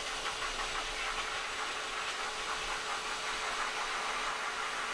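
Pet grooming force dryer blowing air through its hose and nozzle onto a wet cat's coat: a steady rushing whoosh with a faint steady hum.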